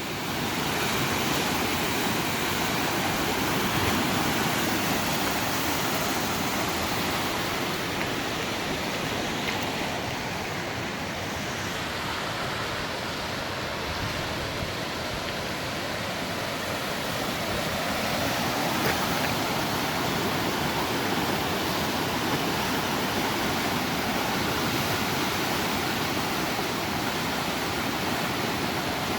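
Row River in flood, a steady even rush of fast, high water.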